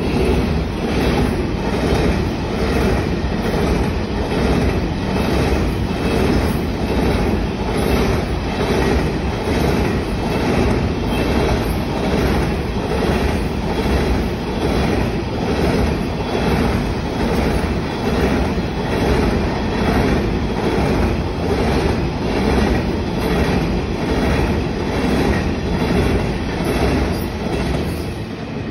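Freight train of container flatcars rolling past, the wheels clicking over the rail joints in a steady clickety-clack of about one beat a second. The sound begins to fade near the end as the last wagons go by.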